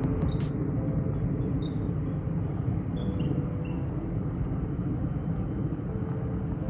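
Faint, short, high chirps from the trees at night, spaced a second or so apart, over a steady low rumble that is the loudest sound.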